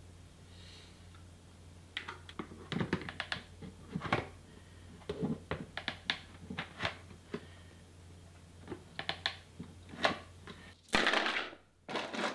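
Hard plastic parts knocking and clicking as a keg liner and its base are handled. Near the end, a rush of gravel is poured into the clear plastic bowl.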